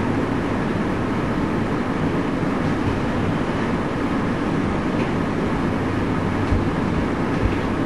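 Steady low rumbling noise, even throughout, with a couple of faint thumps near the end.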